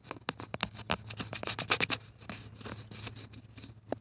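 A phone being handled close to its microphone: fingers rubbing, scraping and knocking against it in a quick, irregular run of scratchy clicks.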